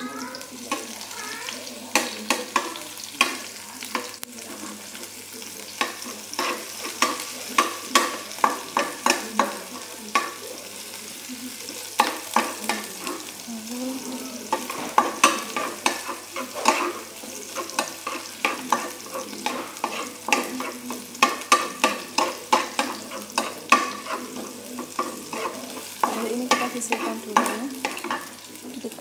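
Chopped vegetables sizzling in oil in a frying pan while a spatula stirs them, clacking and scraping against the pan in quick runs of strokes over a steady hiss.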